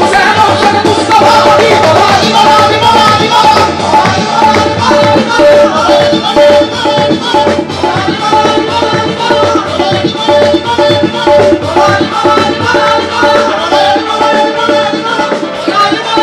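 Qawwali music: harmonium holding and running melody lines over a fast tabla and dholak rhythm, with hand-clapping keeping time.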